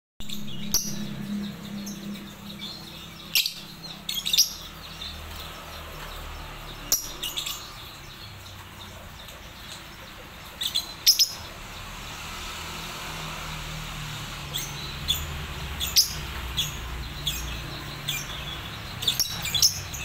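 Lovebirds giving short, shrill chirps, singly and in quick clusters a few seconds apart.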